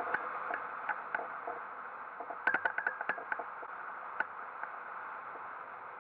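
Steady rush of airflow over a hang glider in flight, with scattered light clicks and a quick cluster of ticks about two and a half seconds in.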